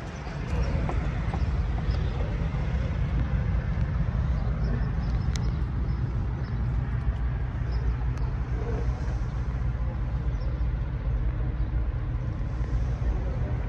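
A diesel truck engine idling, a steady low rumble that does not rise or fall.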